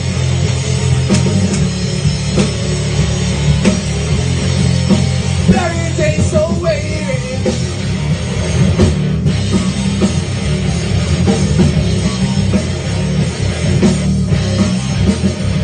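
Loud rock music in an instrumental passage between vocal lines: drum kit, heavy distorted guitars and bass playing steadily, with a short wavering held note about six seconds in.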